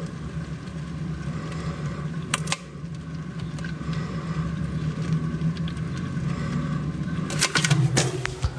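A steady low mechanical hum, with two sharp clicks about two and a half seconds in and a few handling knocks near the end as the phone is moved.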